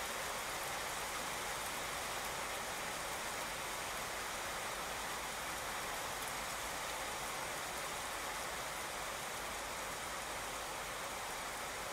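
Steady rain falling on a wet asphalt street and pavement: an even hiss of drops with no single sound standing out.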